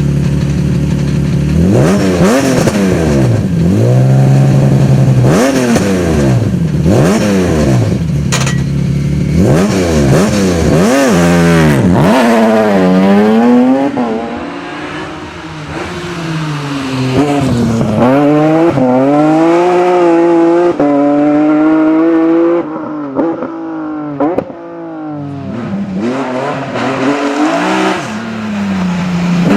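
BMW 130i rally car with an M3 engine running hard, loud, its revs climbing and dropping again and again through gear changes and throttle lifts, quieter briefly twice.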